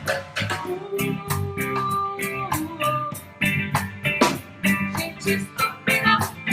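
Music: a melody of held and plucked notes over frequent sharp percussive knocks.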